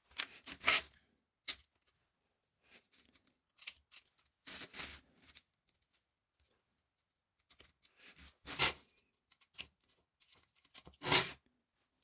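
Self-adhesive foam gasket strip being handled, pressed along a panel edge and cut with small spring snips: a series of short dry rustling, tearing and snipping sounds, about six in all, the loudest two thirds of the way through and near the end.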